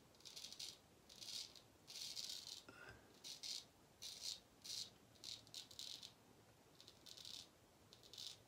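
Gold Monkey straight razor scraping through lathered stubble in short strokes, about a dozen quick, faint scratches, one or two a second.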